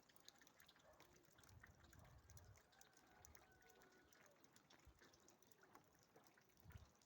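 Near silence: faint outdoor background with a few soft low thumps and scattered faint clicks.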